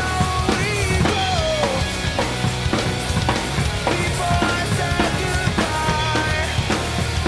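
Acoustic drum kit played hard and fast, kick, snare and cymbal hits coming several times a second. A recorded song with a pitched melody line plays along underneath.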